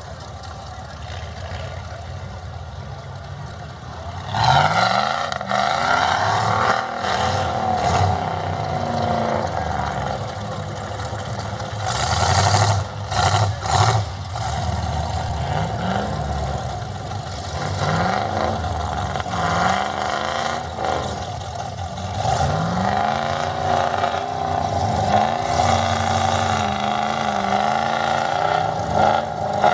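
A mud-bogging truck's engine revving hard again and again, its pitch climbing and falling with each blip of the throttle. It picks up sharply about four seconds in, and there are a few short bursts of noise in the middle.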